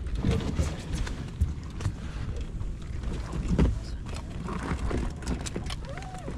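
Wind rumbling on the microphone aboard a small open boat, with scattered clicks and taps as crabs are handled and measured at a wire crab pot.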